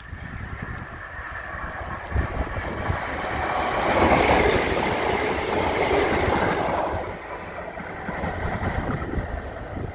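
A train passing at speed with a clatter of wheels on rail, swelling to its loudest about halfway through and then fading.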